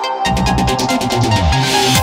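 Electronic background music: a deep bass line comes in a moment in, under a fast run of ticks that gives way to a swell of hiss near the end.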